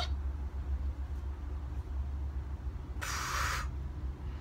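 A steady low hum with a short, breathy hiss lasting under a second about three seconds in.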